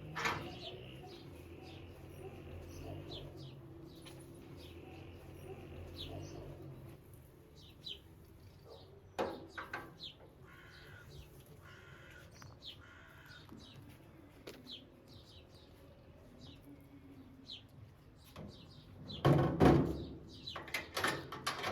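Small birds chirping in short, repeated calls, with a few knocks and a louder clattering bump near the end.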